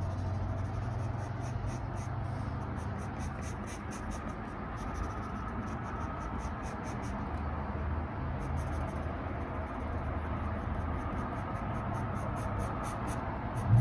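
Graphite pencil scratching across drawing paper in a run of light strokes as long curved lines are sketched, over a low steady hum.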